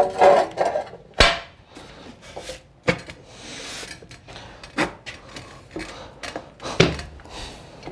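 Ceramic tiles handled out of their cardboard box: about four sharp knocks as tile meets tile or the floor, with a short cardboard rustle in the middle.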